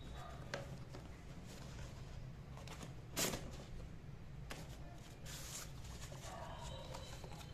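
Cardboard shipping box and corrugated cardboard wrapping being handled and pulled apart: faint scattered rustles, taps and scrapes of cardboard, with a louder scrape about three seconds in and another a little after five seconds.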